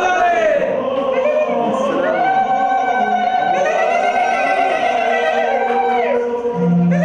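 A singer's voice in Arabic folk singing: a short wavering phrase, then one long held note for about four seconds.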